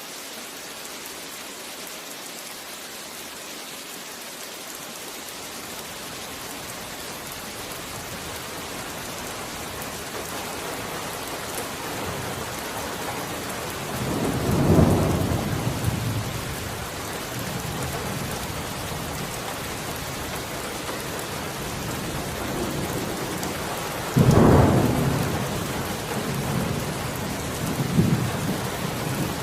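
Steady rain hiss, swelling gradually louder, with two loud rolls of thunder about halfway through and near the end, and lesser rumbles after the second.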